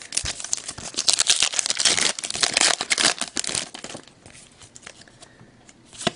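A trading card pack's wrapper being torn open and crinkled: a dense crackle for about four seconds, then quieter, with a few light clicks.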